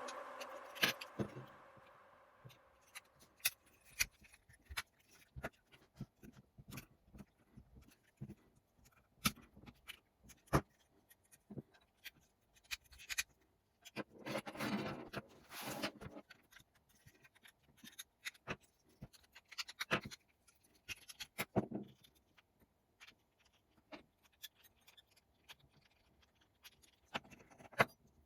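Small mechanical parts being handled, likely the GM headlight switch being worked: scattered sharp clicks throughout, with a longer scrape about halfway through and another shorter one a few seconds later.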